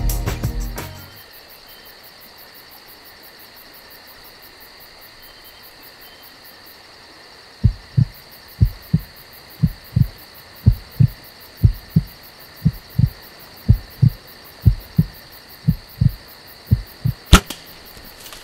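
Heartbeat sound effect, a low lub-dub thumping about once a second that begins partway through, over a steady high hum of insects in the woods. Near the end comes a single sharp snap, the loudest sound, of a bow being shot.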